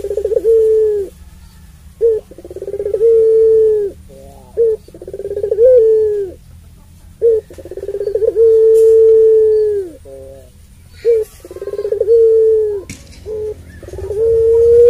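Puter pelung, a domestic collared dove bred for a long voice, cooing: about six long, drawn-out coos, each led by a few short notes, holding one pitch and dropping at the end. The longest, just after the middle, lasts over two seconds.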